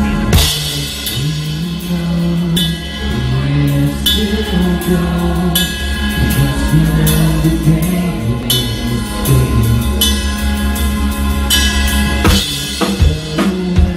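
Live rock band playing loud: a drum kit with regular cymbal crashes over a moving bass line and guitar, with the singer's voice at the microphone.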